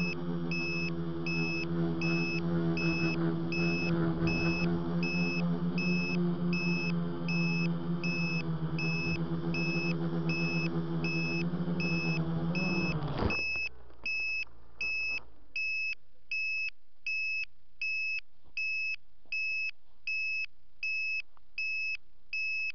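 Tricopter's electric motors and propellers humming steadily, then spinning down abruptly about 13 seconds in as the craft comes down in the grass. A high electronic beep repeats about every three-quarters of a second, going on by itself after the motors stop.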